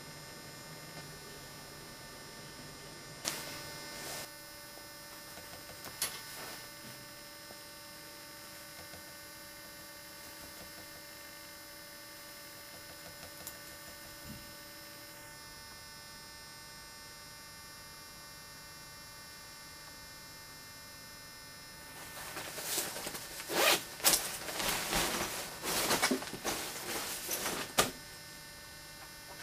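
Steady electrical hum made of several fixed tones, with a couple of sharp clicks early on. Near the end comes several seconds of loud, uneven rustling and knocking handling noise.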